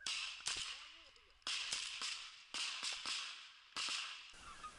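A volley of shotgun shots at geese flying overhead: about five loud reports spread over four seconds, each with a short ringing tail, and a few fainter shots between them.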